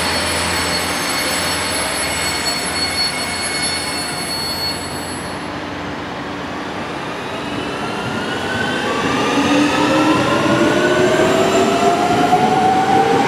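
Red electric multiple-unit train, a DB class 440, pulling away from the platform. A steady train hum with thin high tones fades out around the middle. In the second half the traction motors give several whines that rise steadily in pitch and grow louder as the train accelerates.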